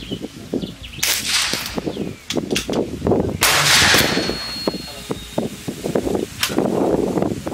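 Umarex Hammer .50 caliber PCP air rifle firing: a sudden loud blast about a second in and a louder one about three and a half seconds in, each with a short rush of noise. Lighter knocks and handling clatter follow.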